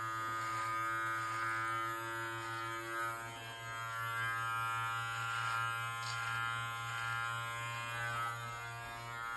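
Live Bearded MT1 cordless beard trimmer running with a steady buzz, its loudness rising and falling a little as it is worked over the beard by the ear.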